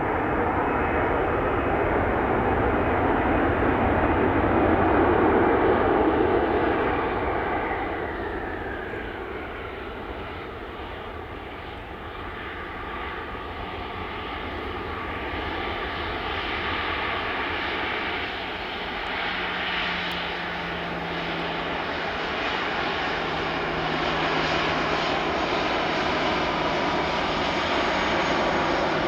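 An airliner's engines passing close by: a loud roar peaking about five seconds in, with a high whine that falls in pitch as it goes past. The noise then eases and builds again into a steadier engine sound with a low hum in the second half.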